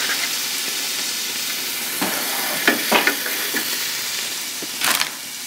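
Braised lamb ribs sizzling in the hot basket of a Ninja Foodi Grill air fryer: a steady hiss with a few sharper crackles in the second half.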